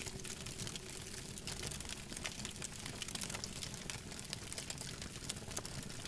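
Campfire crackling: frequent small sharp pops and snaps over a steady low rumble of burning wood.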